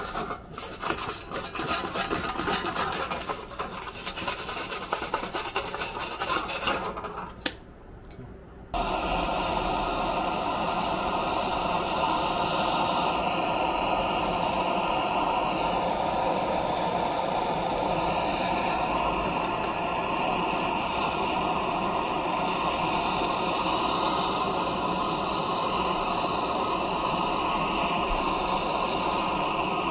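A brush scrubbing aluminium sheet in quick strokes. About nine seconds in, a handheld propane torch comes on with a steady hiss, heating an aluminium joint for brazing with aluminium brazing rod.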